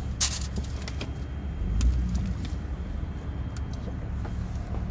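A steady low mechanical hum with scattered sharp metallic clicks and taps, the loudest just after the start, as hand tools go to work on the fuel line.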